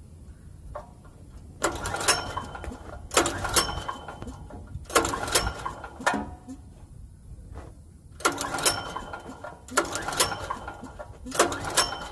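Recoil starter on a Generac GP5500 generator's engine being pulled about six times, each a short rasping whirr of the rope and the engine turning over. The engine does not fire: its fuel tank is bone dry.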